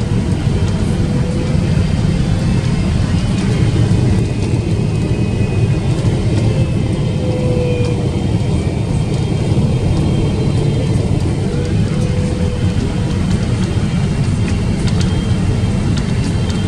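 Steady cabin noise inside a Boeing 777-300ER on descent: its GE90 engines and the airflow make a constant low rumble, with a faint higher tone that wavers slightly in pitch.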